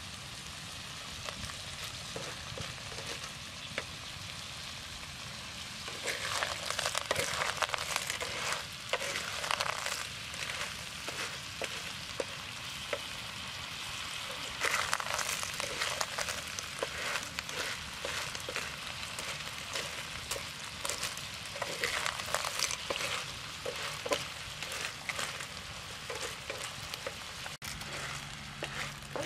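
Small shellfish in their shells sizzling in a hot frying pan, with shells clicking and clattering against the pan as a spoon stirs them. The sizzle and clatter grow louder in several stretches.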